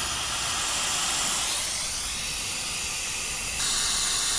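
Air hissing steadily out of a car tyre's valve stem as the valve is held open, deflating the tyre. The hiss gets louder about three and a half seconds in.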